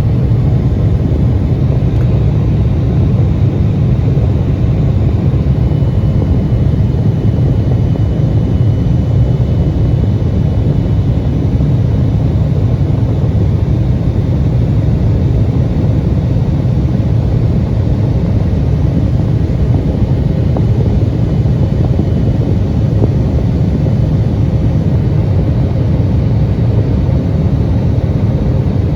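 Embraer 175 cabin noise in flight: a steady, even roar from the jet engines and the airflow, heavy in the low end, with faint steady tones above it.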